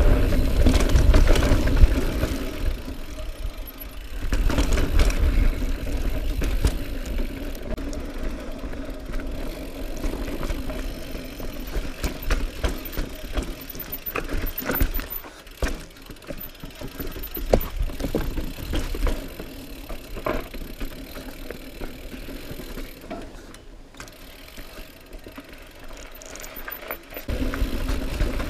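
2018 Norco Range full-suspension mountain bike riding down a rocky dirt trail: tyres rolling over dirt and rock, with frequent sharp knocks and rattles from the bike hitting rocks. A low rumble is loudest in the first few seconds and again near the end.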